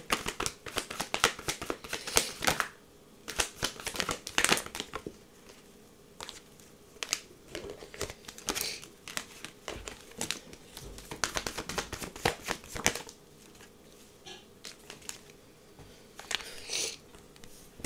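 Tarot cards being shuffled and handled by hand: bursts of quick flicking and rustling card noise, broken by short pauses.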